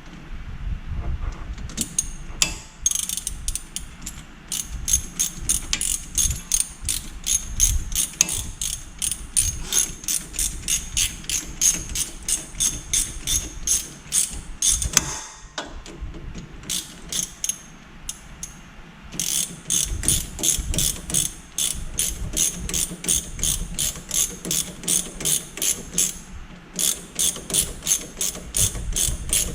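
Hand ratchet wrench clicking in long steady runs of rapid clicks as a fastener is turned, stopping for a few seconds midway and then going on again.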